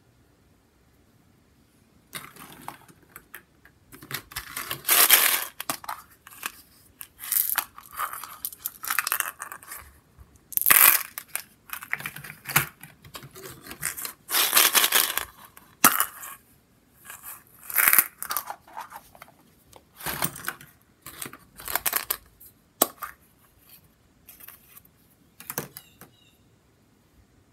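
Plastic surprise eggs and small plastic toy pieces being handled and opened by hand in a plastic bucket: irregular bursts of crackling, scraping and rubbing plastic, with pauses between them.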